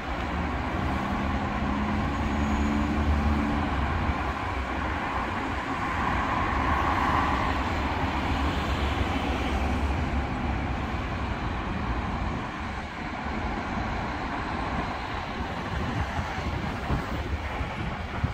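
Road traffic at a roundabout: a steady wash of engine and tyre noise from cars and a flatbed lorry moving through. A deeper engine hum fills the first half, and a vehicle passes louder from about six to ten seconds in.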